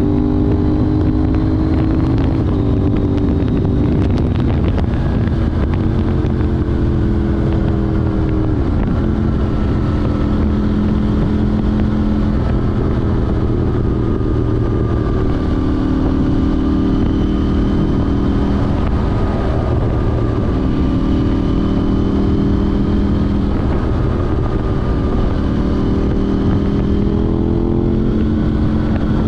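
KTM 790 Duke's parallel-twin engine running through an Arrow Race Tech exhaust with the catalyst removed, on the move. The engine note holds steady for a few seconds at a time and shifts in pitch several times as the throttle and gears change, over wind noise.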